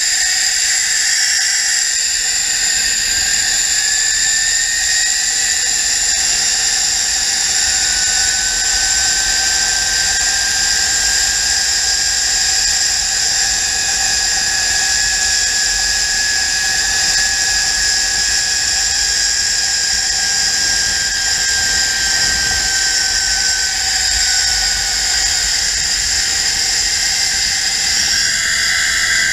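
Zipline trolley pulleys running along the steel cable: a steady high whine whose pitch rises over the first several seconds, holds, then falls in the last several as the speed changes. Wind rumbles on the microphone underneath.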